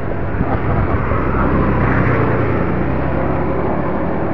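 A motor vehicle's engine running close by: a steady low rumble with a faint hum.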